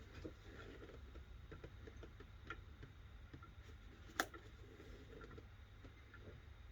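Faint ticks and light knocks from wooden shelf pieces being handled and fitted during a glue-up, with one sharp click about four seconds in.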